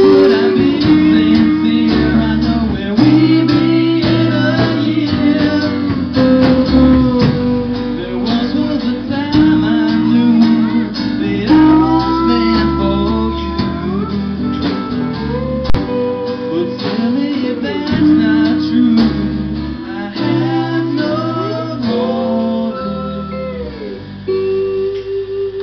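Small live rock band playing: strummed acoustic guitar, electric guitar, bass guitar and a drum kit, with a male voice singing. The music gets somewhat quieter near the end.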